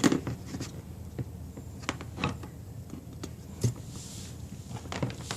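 Scattered light clicks and taps of multimeter test probes and small parts being handled while the refrigerator's overload protector is checked for resistance, over a low steady hum.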